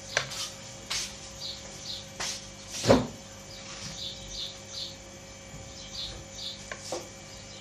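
Tomato sauce bubbling in a pan, with short pops and soft splashes as stuffed courgette rings are set into it, and one louder knock about three seconds in. A bird chirps repeatedly in short phrases in the background.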